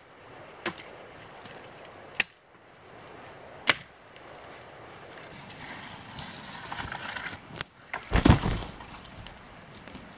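Gränsfors Scandinavian Forest Axe chopping dead wood: three sharp strikes about a second and a half apart. Then footsteps crunching through dry leaf litter and a loud low thump near the end.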